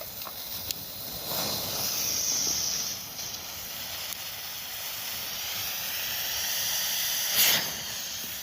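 Burning smoke balls giving off a steady hiss, swelling louder about a second in and again toward the end, with a short, sharper burst of hiss near the end.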